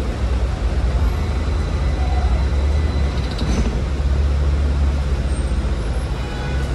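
Hong Kong VVVF double-decker tram running along the street, a steady low rumble of wheels on rail and motor, with road traffic around it.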